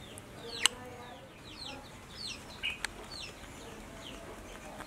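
Chickens calling in the background: a run of short, high peeps that fall in pitch, a few each second. Two sharp clicks stand out, the louder one just under a second in and another near three seconds.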